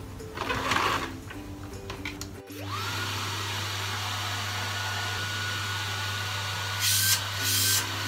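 Dyson CY25 Ball Turbinehead+ canister vacuum switched on about two and a half seconds in: the motor spins up with a rising whine, then runs steadily with a low hum beneath. There are a couple of brief louder hissing bursts near the end.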